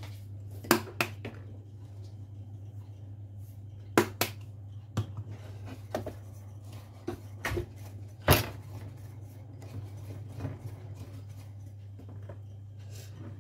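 Scattered sharp clicks and knocks of a spice jar and a small ceramic bowl being handled on a wooden cutting board while dry spices are mixed by hand, the loudest knock about eight seconds in. A steady low hum runs underneath.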